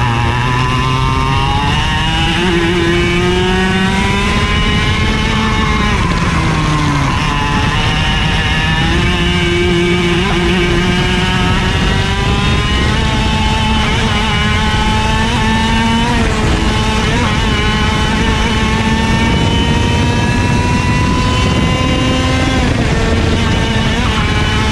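IAME KA100 100cc two-stroke kart engine at racing speed, heard from on board: its pitch climbs steadily along the straights and drops sharply when the driver lifts for corners, about three times. A steady rush of wind and tyre noise runs under it.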